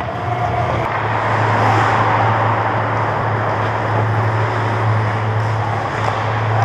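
Ice hockey rink ambience heard from the goal net: a steady low hum under an even wash of skate blades scraping and gliding on the ice.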